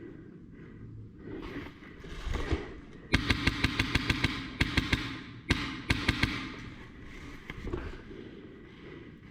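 Airsoft electric gun firing on full auto in several short bursts over about three seconds, starting about three seconds in: a rapid string of sharp clicks over the gearbox's steady hum.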